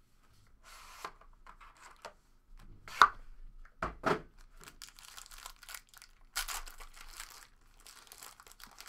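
Foil trading-card pack wrappers crinkling and tearing as packs are handled and ripped open. Two sharp knocks about three and four seconds in.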